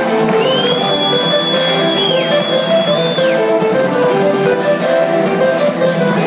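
Live guitar music played on stage by two guitarists, many quick picked notes. From about half a second in, a high, steady whistle-like tone sounds over the guitars for about three seconds, then drops away.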